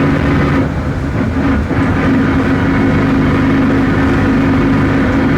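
Volksbus 17.230 OD bus's MAN D0834 four-cylinder diesel running under way, with a steady drivetrain hum that the title puts down to a growling differential. The note drops away briefly about a second in, then comes back steady.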